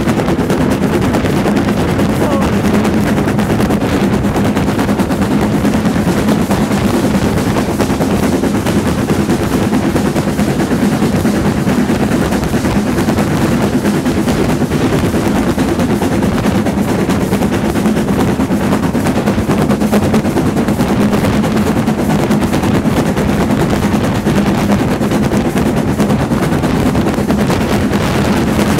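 LMS Black Five two-cylinder 4-6-0 steam locomotive running at speed, heard from a carriage close behind: a loud, steady, rapid chatter of exhaust beats and wheels on the rails, mixed with wind rushing over the microphone.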